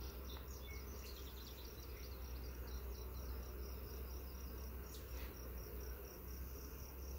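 Honeybees humming around an opened nuc hive as a frame is lifted out, over an insect chirping in a fast, steady, high pulse. A faint click about five seconds in.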